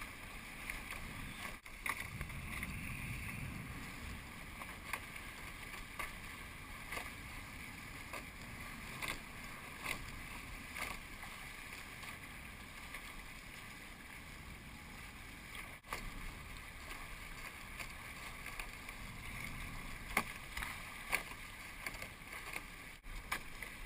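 Water rushing along and slapping against the hulls of an A-class catamaran sailing upwind through small chop, with frequent short, sharp slaps and knocks.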